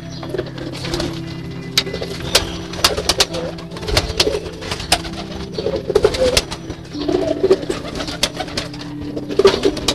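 Domestic pigeons cooing in a loft, with many sharp clicks and knocks scattered through the sound.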